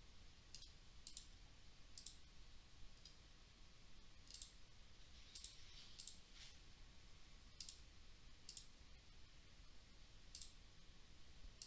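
Faint computer mouse clicks, about eight at irregular intervals roughly a second apart, over quiet room tone.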